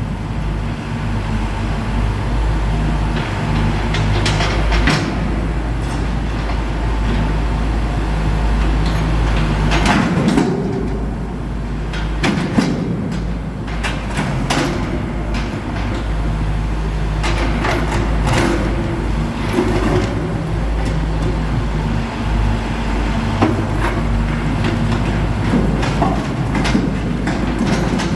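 Caterpillar 420 backhoe loader's diesel engine working, its speed rising and falling, with scattered sharp clanks and knocks.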